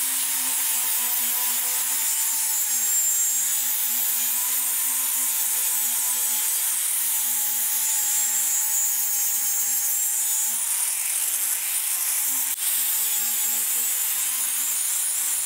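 Bosch angle grinder with a 60-grit flap disc grinding down a stick weld bead on carbon steel angle: a steady motor whine under a loud hiss of abrasive on steel. The pitch rises briefly about eleven seconds in.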